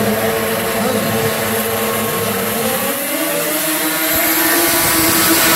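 Pack of racing snowmobiles' two-stroke engines running at high revs, several engine notes overlapping. The pitch rises about three seconds in and the sound grows louder near the end as the sleds come up the straight.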